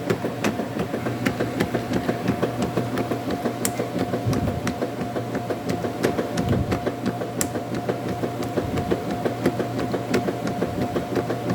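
Washing machine running: a steady motor hum with a churning, fluttering sound and scattered sharp clicks throughout.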